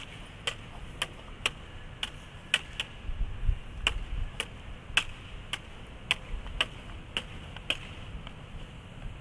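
Two LED lightsaber blades clacking together in a steady, staccato rhythm of about two strikes a second, with a brief pause near the middle. The strikes stop about eight seconds in.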